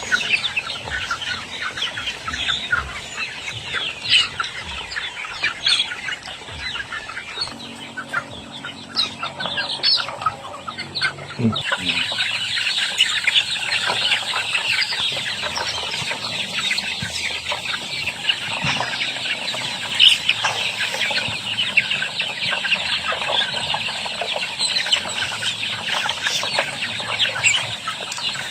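A large flock of farm chickens clucking together in a dense, continuous chatter of short calls, growing louder and busier about twelve seconds in.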